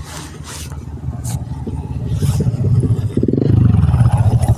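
An engine running with a rapid low pulsing rumble that grows louder, its pitch dropping sharply about three and a half seconds in, with a few short hissing bursts in the first half.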